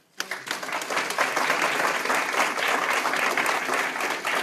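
Room of people applauding: many hands clapping, starting suddenly just after the start and keeping up steadily.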